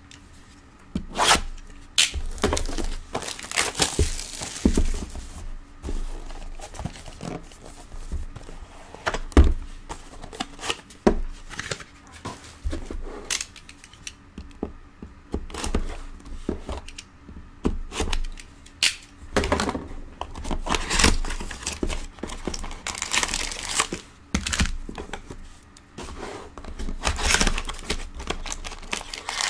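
Shrink-wrapped trading card boxes being unwrapped: a box cutter slitting the plastic wrap, the film tearing and crinkling, and thunks of the cardboard boxes being handled and set down. Near the end, a box's cardboard flap is pulled open.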